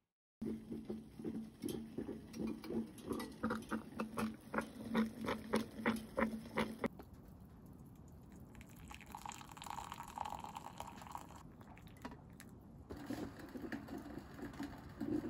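Enamelware coffee percolator perking: rhythmic gurgling pulses, several a second, over a steady low hum, stopping about seven seconds in. Then coffee pours from the percolator into a glass mug, more softly.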